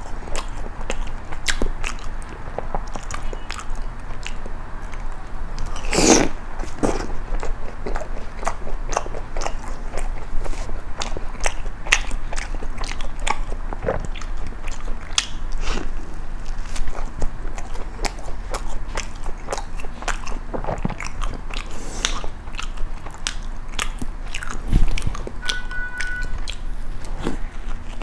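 Close-miked biting and chewing of kaya jam toast: irregular crunchy clicks and mouth sounds, with a louder crunch about six seconds in.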